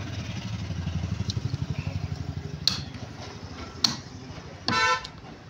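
A low, evenly pulsing engine rumble that fades away about halfway through, then two sharp chops of a cleaver cutting sheep meat on a wooden stump block. A short steady tone sounds near the end.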